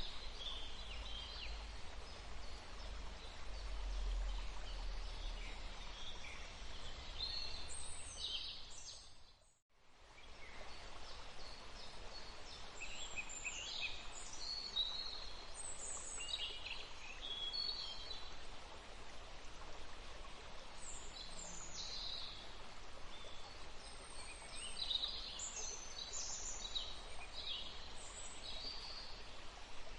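Many small forest birds chirping and calling over a steady hiss of breeze, with a low wind rumble in roughly the first nine seconds. About ten seconds in the whole sound briefly dies away to silence, then fades back up.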